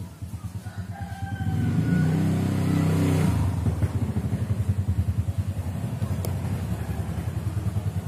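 Engine running nearby, swelling over the first few seconds and then holding at a steady level with an even pulsing beat. A brief crowing call sounds about a second in.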